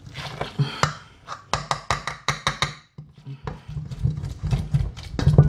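Metal wire potato masher mashing a chickpea burger mixture in a stainless steel bowl: a quick run of knocks and clinks of metal on the bowl, with a short pause about three seconds in before the strokes start again.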